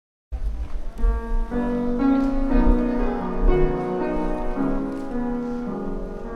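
Instrumental music starting abruptly just after the opening, with sustained piano-like chords over a deep bass.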